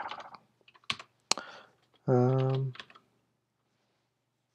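Computer keyboard typing: a few quick keystrokes, then two sharp key clicks about a second in. A brief, steady low hum about two seconds in is the loudest sound.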